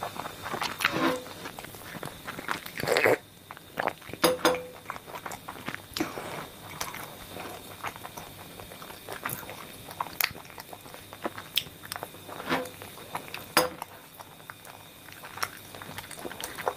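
Close-up chewing of pani puri with the mouth full, with irregular sharp crunches of the puri shells.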